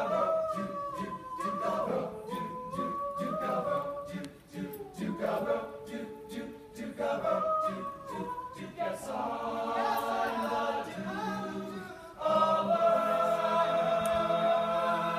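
Male a cappella ensemble singing in close harmony, with a regular clicking beat under the melody in the first part. About twelve seconds in the voices swell into a loud, sustained chord that is held to the end.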